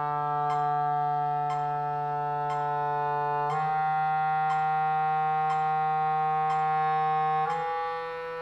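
Clarinet playing slurred long tones in the low register, rising by small steps up a chromatic scale, each note held about four seconds, with a metronome ticking once a second.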